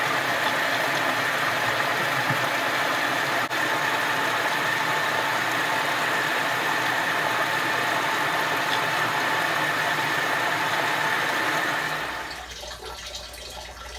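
Water pouring into the tub of an LG WT7800 top-load washer during the fill stage of a tub-clean cycle: a steady rushing hiss with a faint high tone. About twelve seconds in it drops to a much quieter, uneven trickle.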